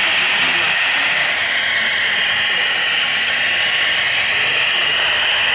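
HO-scale model freight train running on the layout: a steady mechanical whir and hiss of its wheels and motors, with no change in level.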